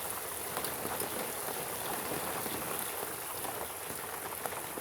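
Steady light rain: an even patter of drops landing on surfaces, with many small ticks.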